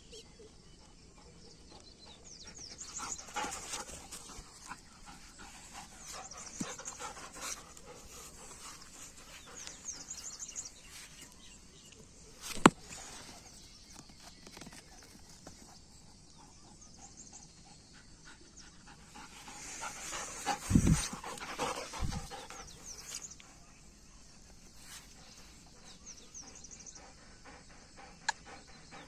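Doberman panting, with small birds chirping behind it. A single sharp knock comes about halfway, and two low thumps follow a few seconds after two-thirds of the way in.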